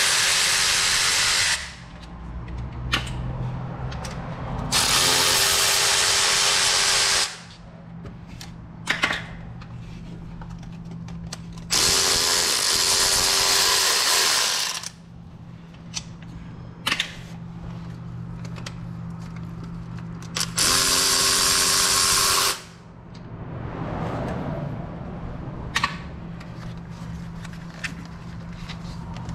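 Cordless electric ratchet spinning bolts out, running in four bursts of about two seconds each with a steady motor whine. It is loosening the valve cover bolts on a V8 engine. Small clicks of tools being handled come between the bursts.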